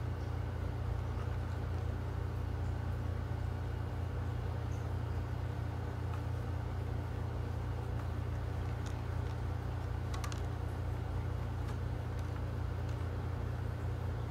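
A steady low hum, with a few faint clicks about ten seconds in, as kibble and plastic pegs click while a cat noses food out of a plastic peg puzzle feeder.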